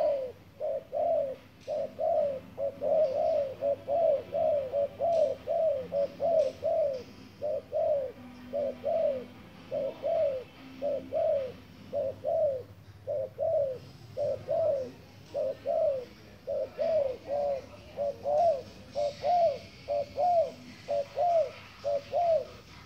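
Spotted dove giving a long, even series of short coos, about two a second.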